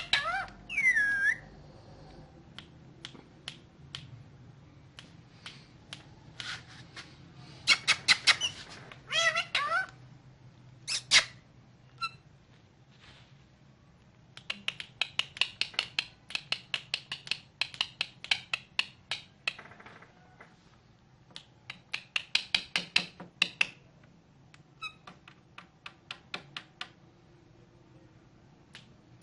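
Indian ringneck parakeet (rose-ringed parakeet) calling: sharp, shrill squawks, some alone and some in quick runs of about three a second, with a few bending, warbling whistled calls near the start and about eight to ten seconds in.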